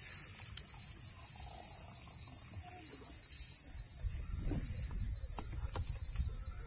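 A steady, high-pitched insect chorus with a fast pulsing trill. A low rumble joins about four seconds in, with a few faint clicks.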